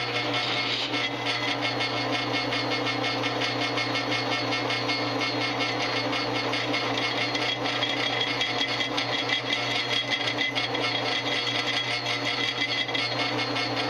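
Drill press running steadily as a pilot bit cuts into the cast-iron housing of a Saginaw power steering gearbox, a constant motor hum under the continuous sound of the bit cutting.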